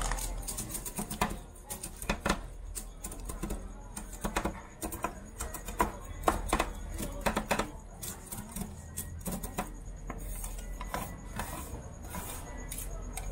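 Two metal spatulas chopping crispy fried durian chips on a stainless steel rolled-ice-cream cold plate: quick, irregular clacks of steel blade edges striking the steel plate, several a second.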